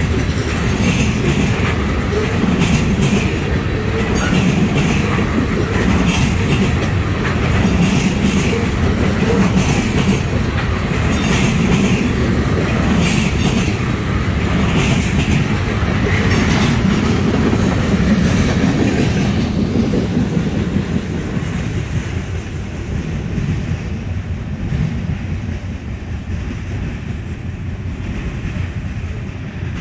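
Freight cars of a trash-container train rolling past on steel rails: a steady rumble of wheels with rapid clacking, easing off and fading about two-thirds of the way through as the end of the train moves away.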